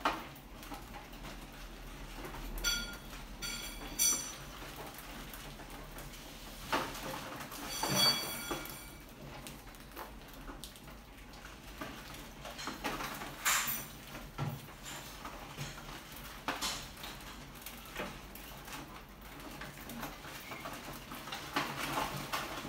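Rats scrabbling over a wire-mesh lid and glass tank: claws scratching and scattered small knocks, with a few louder bursts of scrambling. Short high squeaks a few seconds in and again around eight seconds in.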